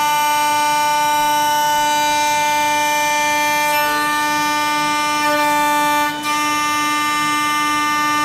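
CNC wood router with a single spindle running, machining a wooden board for a speaker cabinet: a loud, steady high-pitched whine that holds one pitch throughout.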